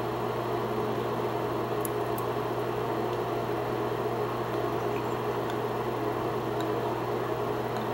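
Steady low hum with an even hiss, like a fan or appliance running in a small room, unchanging throughout.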